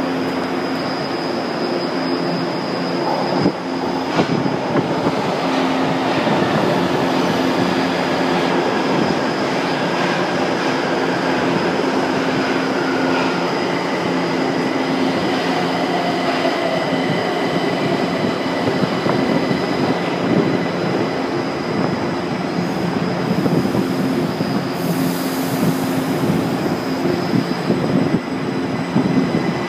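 Subway train of São Paulo Metro Line 2 standing at the platform, its equipment running with a steady hum over the loud station din. About 25 seconds in comes a short hiss of air.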